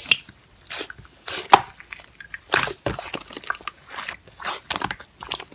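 Slime being squished and pressed by hand, making irregular sticky clicks and crackles.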